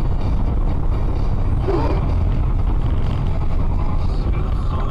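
Steady low road and engine rumble of a car driving on a highway, heard from inside the cabin through a dashcam. A brief wavering tone comes about two seconds in.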